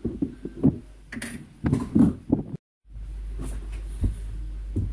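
Irregular knocks and clicks of paintball marker parts being handled and set down on a work surface. The audio drops out briefly just past halfway, then a steady low hum continues with a few light clicks.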